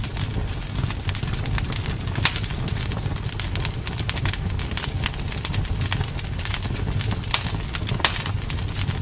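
Wood fire crackling in a fireplace: a steady low rumble under a dense run of small sharp snaps and pops. A few louder pops stand out, one about two seconds in and two near the end.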